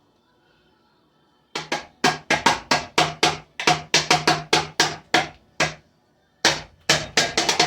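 Rapid, loud banging of hard impacts on a ceiling fan, about four to five knocks a second, starting about a second and a half in, with a short break near the end before a final flurry.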